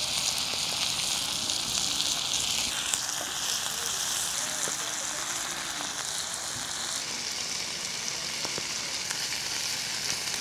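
Pork belly and kimchi sizzling steadily on a hot griddle over a wood fire, with a few light clicks of the tongs as the meat is turned.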